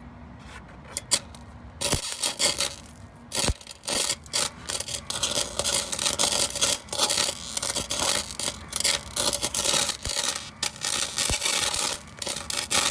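Arc welding: the arc crackling and sputtering in dense, irregular bursts from about two seconds in, after a few sharp clicks as it is struck.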